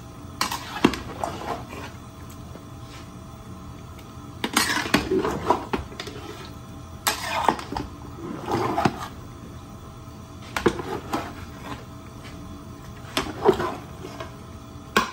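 A long-handled spatula stirring chicken pieces through thick curry sauce in a large aluminium stockpot, scraping along the bottom of the pot. The scraping and wet churning comes in about five bursts with clicks of metal on metal, over a steady hum.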